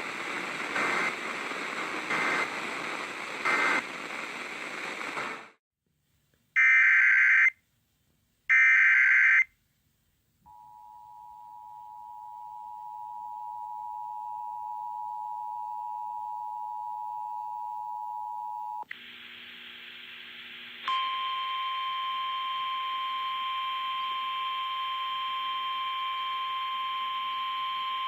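Emergency Alert System tones over a radio: a hiss of static carrying three short digital data bursts, then two loud one-second data-burst header tones, then the two-tone attention signal held for about eight seconds. Near the end it gives way to a steady single-pitched alert tone.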